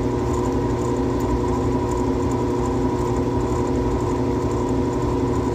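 Lennox G51MP 90% furnace's inducer (draft) motor running with a steady hum, while the furnace fails to light and the control board shows a fault code.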